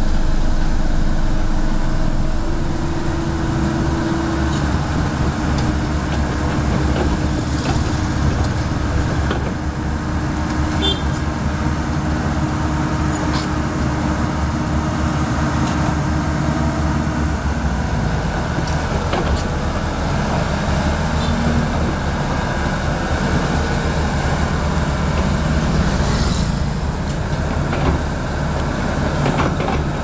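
Komatsu D31P crawler dozer's diesel engine running steadily under load as it works the soil, with occasional clanks from the tracks and blade. A steady hum from another engine, likely the Hamm road roller alongside, drops out a little past halfway.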